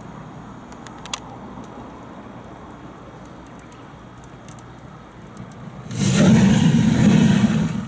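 Lithium polymer battery cell venting in thermal runaway: a sudden loud rushing hiss of escaping gas starts about six seconds in and lasts about two seconds, over a low background with a few faint clicks before it.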